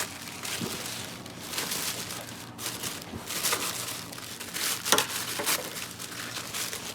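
Hands unwrapping a packaged plant cutting: irregular crinkling and rustling of packaging, with a few sharper crackles.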